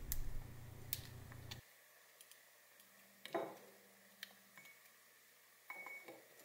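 Faint clicks and a short knock, about three seconds in, from a stiff 3D-printed PLA plastic piece being handled against a glass jar, with small taps near the end as it is set back in the jar. A low background hum cuts out abruptly about one and a half seconds in.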